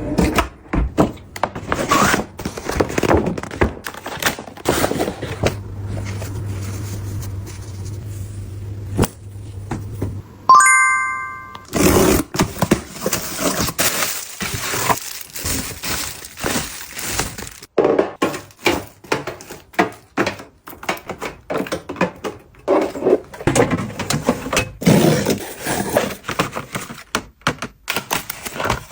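Packaging and items being handled in an unboxing: a dense run of taps, knocks and rustles. A low steady hum runs for about five seconds midway, ending in a short bright chime about ten seconds in.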